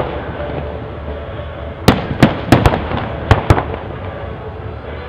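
Aerial fireworks shells bursting: a quick string of about seven sharp bangs starting about two seconds in, over a steady background hiss.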